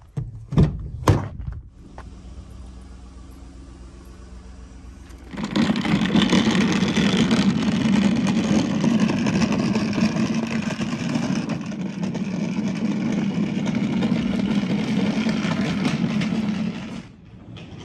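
A few sharp clicks and knocks from a van's rear door handle and latch as the door is opened. From about five seconds in, the hard caster wheels of a wooden furniture dolly, loaded with a boxed tower speaker, roll over asphalt in a loud steady rumble that stops about a second before the end.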